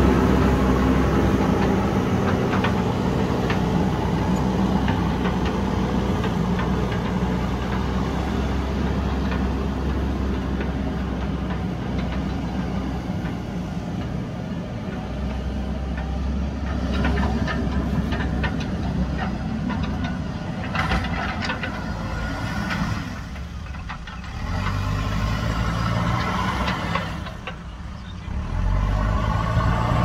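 JCB backhoe loader diesel engine running steadily, loudest at the start, with two short dips in level near the end.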